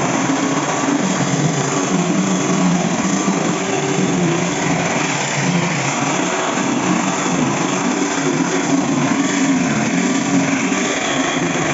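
Electric angle grinder working wood, running continuously with its motor pitch wavering up and down.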